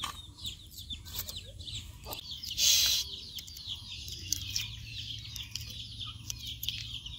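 Chickens calling: many short, high calls repeating throughout, with a short burst of noise about two and a half seconds in and a few faint clicks.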